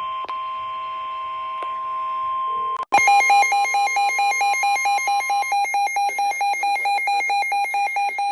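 Emergency alert tones. A steady tone near 1 kHz, like the weather radio warning tone, sounds for about three seconds. Then a louder, rapid electronic alarm beeping takes over, about four beeps a second.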